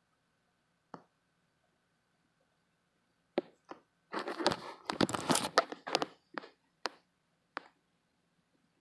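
Striped knee tarantula chewing a cricket: scattered sharp clicks, then a dense crackling crunch lasting about two seconds from around four seconds in, as the fangs work through the cricket's body.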